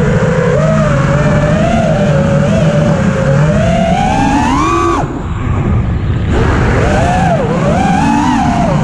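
EMAX Hawk 5 FPV quadcopter's brushless motors whining, the pitch rising and falling with throttle. The whine climbs to a peak, falls away sharply for about a second, then picks back up and wavers again.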